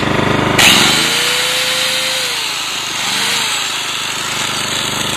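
Ryobi RYi2000 inverter generator taking on a load: about half a second in a sudden, louder rush of noise starts, and the engine's pitch climbs, dips and climbs again as it bumps itself up a little to carry the load.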